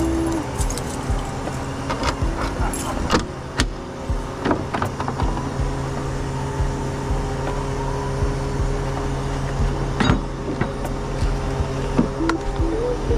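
Scattered clicks, clinks and knocks of tow gear being handled around a tow truck, over a steady engine idle.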